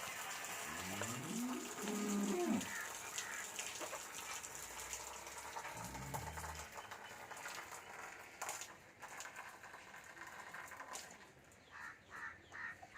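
Dairy cow mooing: one long moo that rises and then falls in pitch, starting just under a second in, then a shorter, lower moo about six seconds in.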